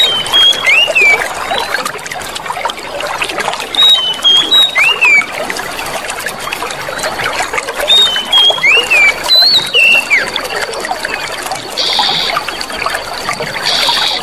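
Water trickling and splashing steadily, with a songbird repeating a short whistled phrase of a few gliding notes about every four seconds. These phrases are the loudest sounds. Later a thin steady high tone joins in, with two brief high buzzes near the end.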